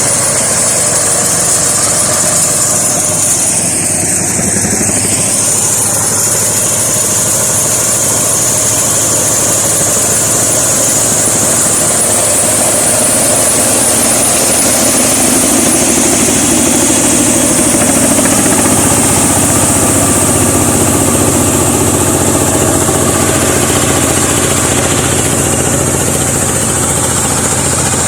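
Mini combine harvester running steadily, its engine and machinery giving a continuous loud hum with a hiss on top. About two-thirds of the way through, a lower hum grows stronger.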